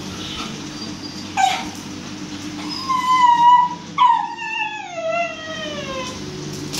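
A beagle yelping once, then whining: a held cry, then a long whine that slides steadily down in pitch over about two seconds.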